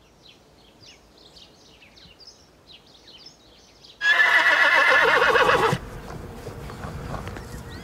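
Faint, high bird chirps, then about four seconds in a loud horse whinny lasting nearly two seconds, its pitch wavering up and down; after it, only a steady low background noise.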